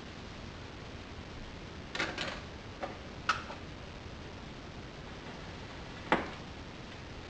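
Clicks from a portable suitcase record player's tonearm and controls being handled: a few short clicks about two to three and a half seconds in, then one sharper, louder click about six seconds in as the arm is set on the record, over a faint steady hiss.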